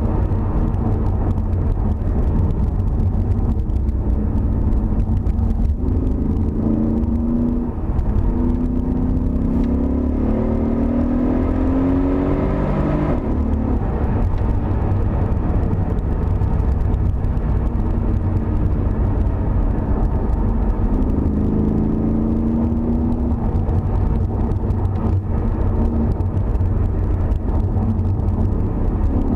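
Mercedes CLS 63 AMG twin-turbo V8 heard from inside the cabin, accelerating with its note climbing and then dropping at gear changes about 6 and 13 seconds in, then running at a lower, steadier note. Heavy road and tyre rumble underneath.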